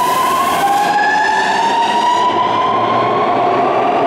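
Electric commuter train's traction motors whining as it accelerates, rising steadily in pitch. The whine drops back once about half a second in and climbs again, over the rumble of the train running.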